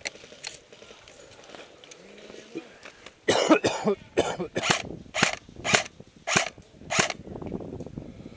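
Airsoft rifle fired in single shots: about eight sharp shots roughly half a second apart, starting about three seconds in.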